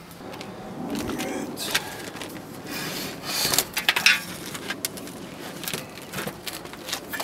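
Hands handling a cable and mounting hardware on a roof: rubbing, scraping and scattered light clicks.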